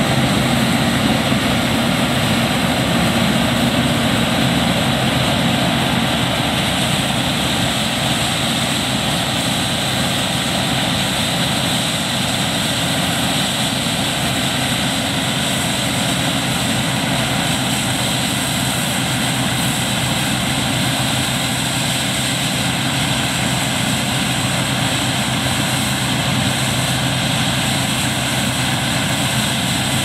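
New Holland TX36 combine harvester working in wheat: its engine and threshing machinery run steadily as it cuts and threshes, a constant dense drone with a low hum, slightly louder in the first few seconds.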